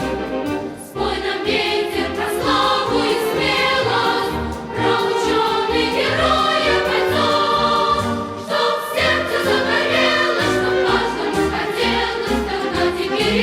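Music: a choir singing with orchestral accompaniment.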